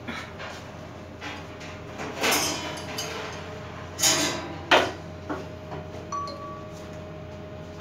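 Metal clanks and scrapes of an adjustable spanner working on the metal head of a planetary mixer as it is taken apart: three louder scraping clanks, around 2 s, 4 s and just before 5 s, with lighter clicks between.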